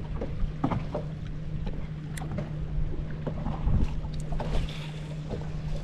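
A steady low motor hum under wind and water noise, with a few faint clicks scattered through.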